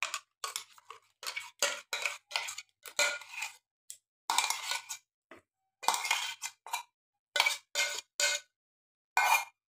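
Stainless steel mixer-grinder jar being scraped and knocked while thick raw-mango paste is emptied out of it: an irregular string of short metallic scrapes and clinks.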